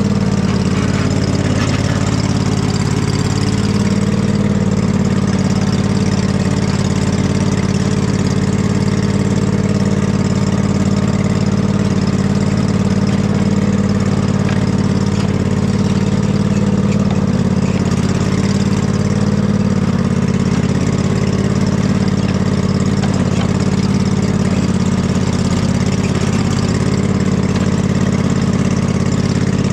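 Husqvarna riding lawn mower engine running steadily while the mower is driven, its pitch wavering slightly now and then.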